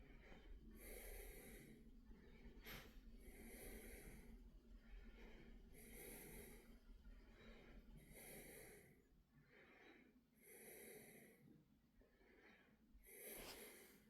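Faint, slow breathing close to the microphone, about one breath every two and a half seconds.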